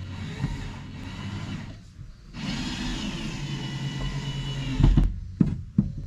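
Power drill driving a screw into a wooden board in two runs of motor whir, the pitch sagging as the screw pulls the board in tight. A few sharp knocks follow near the end.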